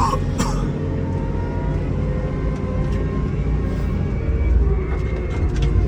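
Komatsu WA270 wheel loader's diesel engine running with a steady low rumble while its Metal Pless Live Edge plow pushes snow. Two short clicks right at the start.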